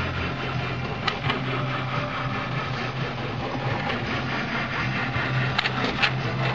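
Stepper motors of a homemade CNC pen plotter built from scrap parts, running the axes with a low hum that stops and starts as the moves change. A few sharp mechanical clicks come about a second in and near the end.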